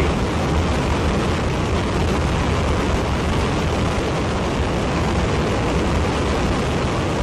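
Ares I five-segment solid rocket motor firing at full thrust on a horizontal static test stand: a steady, loud rush of noise, heaviest in the deep bass, with no let-up.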